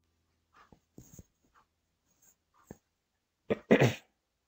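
A person sneezing once, sharply, about three and a half seconds in, after a few faint mouth clicks.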